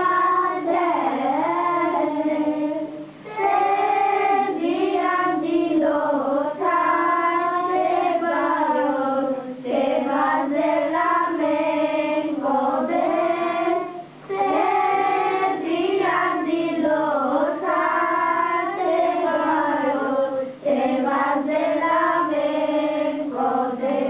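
A group of children singing a Romani Christmas carol (kolinda) together in unison, with no instruments heard. The singing comes in long phrases, with short breaks between them about every five seconds.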